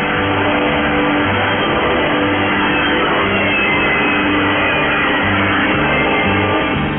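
Music heard through a shortwave AM radio broadcast, muffled by the narrow audio band of the reception. Near the end it changes to other music with a quicker beat.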